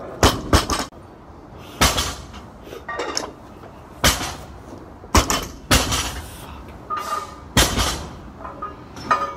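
Loaded barbell being lifted through cleans and presses: a series of sharp clanks and thuds as the weight plates knock on the bar and the bar comes down onto the floor, a few seconds apart.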